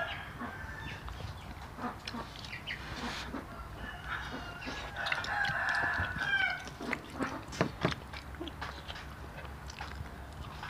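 Chickens in the background: a rooster crows once, for under two seconds, about halfway through, among hens clucking.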